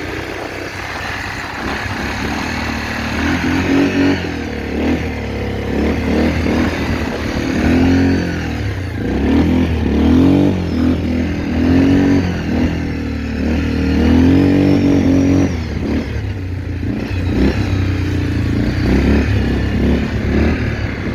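ATV (quad bike) engine running and being revved up and down again and again, its pitch rising and falling every second or so, then settling steadier near the end.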